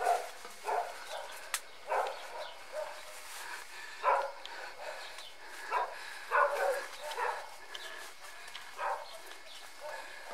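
A dog barking: about ten short barks and yelps at uneven intervals.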